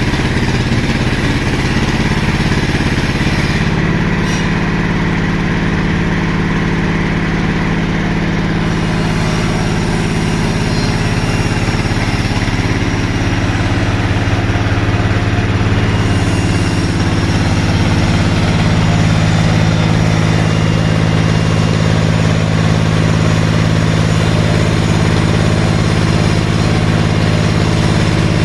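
Sawmill machinery running steadily with a low, even hum.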